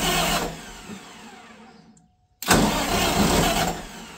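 Generator set's diesel engine cranked on its electric starter in short bursts: one crank ends just after the start and another begins about two and a half seconds in, each winding down with a falling whine when released. The engine turns over but does not fire; the owner thinks the cranking has pulled all the fuel out of it.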